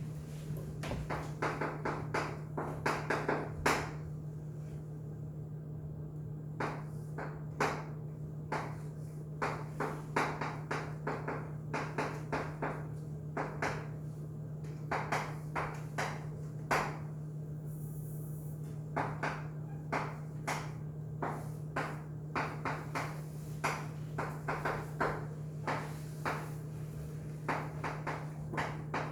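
Sharp taps and clicks in irregular quick clusters, the sound of writing strokes on a hard surface, over a steady low electrical hum.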